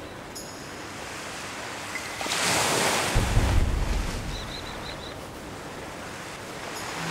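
Sea waves washing on the shore: a steady wash, with one wave surging up and breaking about two seconds in and then fading. A low rumble of wind on the microphone comes with the surge, and a few faint short high chirps follow it.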